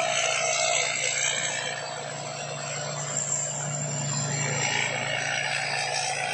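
Combine harvester running steadily: a constant engine drone under a broad, even rushing noise from the machine.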